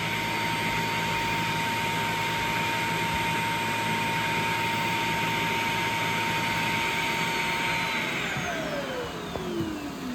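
Shark robot vacuum's self-emptying dock running its suction motor with a loud, steady rush and whine. Near the end the whine falls in pitch and the rush fades as the motor winds down, which marks the end of the emptying cycle.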